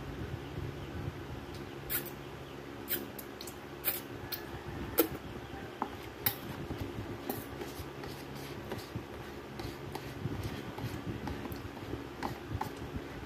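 Eating instant cup noodles: a metal utensil stirring, scraping and tapping inside a paper noodle cup, giving sharp clicks about once a second, fewer later, together with slurping and chewing. A low steady hum runs underneath.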